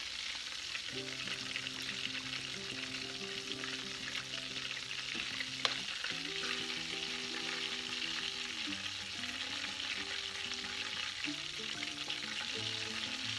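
Battered chicken strips deep-frying in hot grease, a steady sizzle, with one sharp click about halfway through. Soft background music of held chords comes in about a second in.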